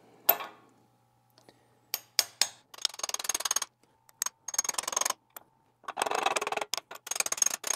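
A camshaft core plug being pushed and worked by hand into its sealant-coated recess in the back of an engine block. A knock comes first, then a few sharp clicks, then repeated short bursts of scraping and rubbing.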